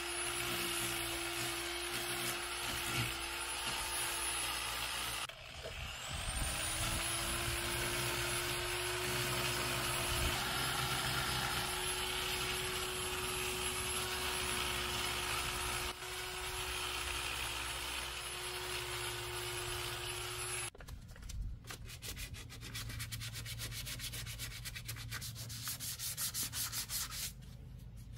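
Power sander grinding down Bondo body filler on a truck's body panel: the motor whines steadily, stops about five seconds in and spins back up with a rising whine a second later, then runs on until about two-thirds of the way through. After it stops, sandpaper is rubbed over the filler by hand in quick, rapid strokes.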